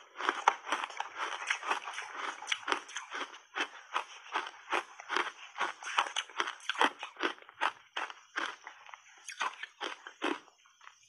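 Ice chunks coated in matcha powder crunching between teeth as they are chewed close to a lapel microphone: a rapid run of sharp cracks that thins out and stops near the end.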